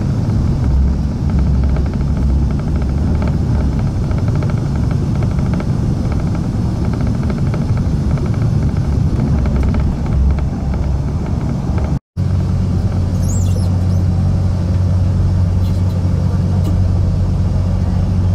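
Steady rumble of an ETR470 Pendolino electric train running at speed, heard from inside the passenger car. It drops out briefly about twelve seconds in and comes back as a steadier low hum.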